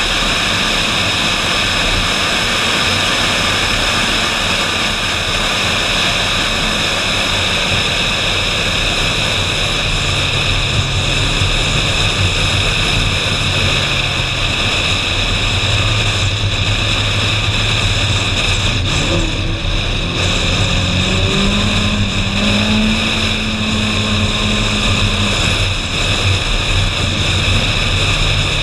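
Ferrari 458 Spider driving at speed, heard from a body-mounted camera: a steady rush of wind and road noise dominates. Underneath it the 4.5-litre V8's low note rises about two-thirds of the way through, holds briefly, then falls back near the end.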